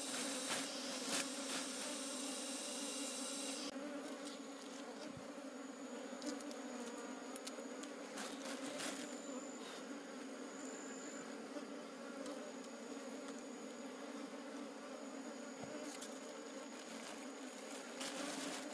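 A mass of honeybees buzzing steadily, a low hum with a fainter higher overtone. There are scattered light clicks and scrapes over it, and a high hiss that cuts off about four seconds in.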